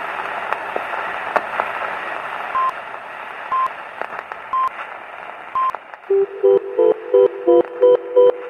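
Old-film countdown leader effect: a steady crackling hiss with scattered clicks, and a short beep once a second, four in all. About six seconds in, a quick staccato tune starts, about three notes a second.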